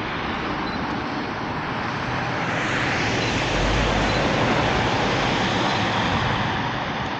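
A lorry passing close by on a snowy road: the tyre noise and low engine rumble swell to a peak about four seconds in, then fade.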